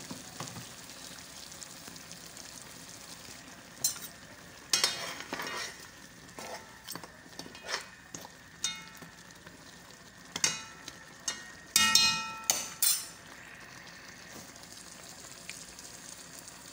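Meat, stockfish and ground ogbono cooking in a steaming metal pot with a low steady sizzle, while a metal spoon stirs and scrapes against the pot in scattered knocks. Near the end come a few louder ringing clanks of spoon on pot.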